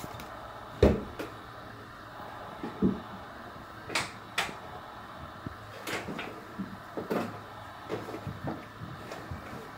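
A dozen or so short knocks and clacks of a plastic squeeze bottle and hands working around a wet whetstone on a steel counter while water is squirted onto the stone. The loudest knock comes about a second in.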